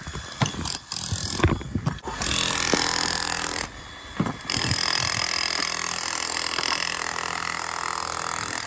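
Makita electric hammer with a chisel bit hacking old render off a brick wall. It starts in short bursts, then runs longer, with a brief break a little under four seconds in.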